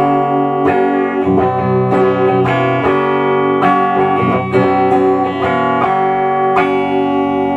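Electric guitar played through a circa-1967 VOX AC10 valve amplifier on its clean channel, strummed chords and picked notes following one another. The amp is working properly after its check-over and repair, and sounds good.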